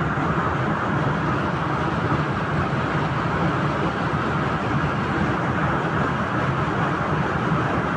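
Steady, even background rushing noise with no distinct sounds in it.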